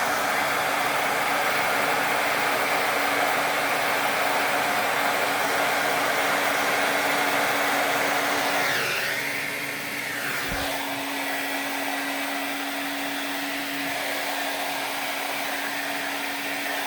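Handheld hair dryer running, blowing air over wet pour paint: a steady rush of air with a constant motor hum. The sound drops a little about nine seconds in, and a single short knock comes about a second after that.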